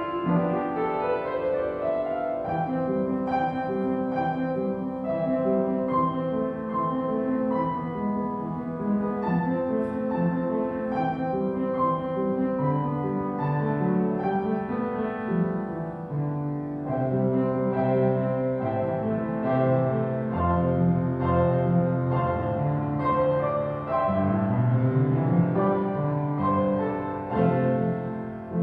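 A keyboard instrument playing a slow piece of held chords under a melody line.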